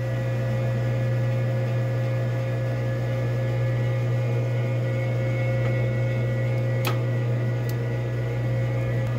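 Willis 1440 engine lathe running at 140 rpm with the threading lever engaged, the lead screw driving the carriage for 13 threads per inch: a steady motor and gear-train hum with a few steady whines. Two short clicks about seven seconds in.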